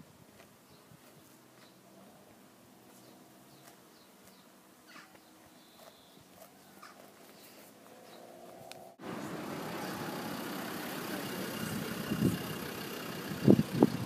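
Faint open-air quiet with a few short bird chirps and a distant engine hum that rises slightly. About nine seconds in, a cut brings a much louder, steady rush of roadside traffic noise with wind on the microphone and a few thumps near the end.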